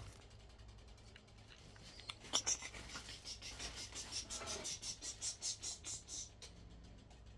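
A screwdriver working a ceiling fan's blade screw: a couple of clicks, then a run of short, even scrapes at about three a second that stops near the end.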